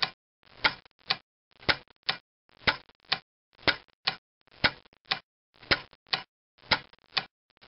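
Wico EK magneto being tripped on a bench test fixture to fire its test spark plug, about once a second: each cycle is a sharp snap followed by a lighter click roughly half a second later, in an even rhythm.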